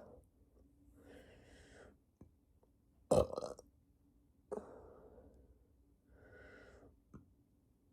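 A person burping several times: a loud, short burp about three seconds in, then a longer one that fades out, with softer, breathier burps and breaths between.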